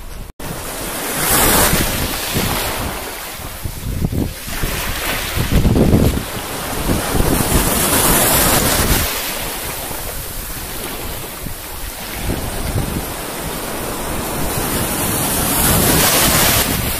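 Small sea waves breaking and washing up a pebbly shore, the surf swelling and easing every few seconds, with wind buffeting the microphone.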